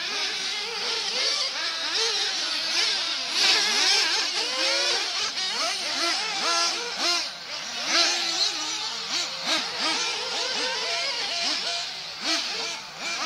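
Small two-stroke nitro engines of 1/8-scale RC off-road buggies, a Kyosho Inferno MP9 among them, buzzing around a dirt track. Several engines overlap, each one's pitch rising and falling constantly as the cars accelerate and brake through the corners.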